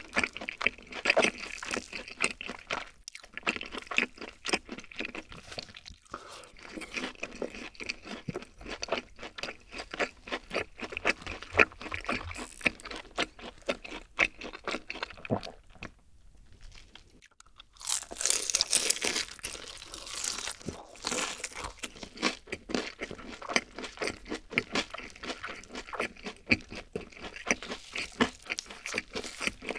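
Close-miked eating: chewing and crisp crunching of fried chicken, many irregular crackles. A little past halfway there is a short lull, then a run of louder, sharper crunches as a honey-glazed fried chicken piece is bitten into.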